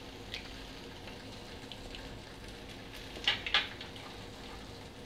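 An egg tapped twice against the rim of a stainless-steel mixer-grinder jar to crack it: two sharp knocks a quarter-second apart, over a faint steady hum.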